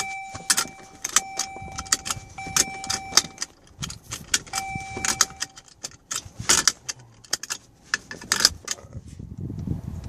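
Seat belt latch plate clicked into and out of its buckle over and over, many sharp metal clicks and rattles, in the rapid unbuckle-rebuckle sequence used to disable the 2015 Dodge Journey's seat belt chime. The car's seat belt warning chime sounds four times in the first six seconds, a steady single-pitched tone about a second long each time, set off by the belt being unfastened with the ignition on.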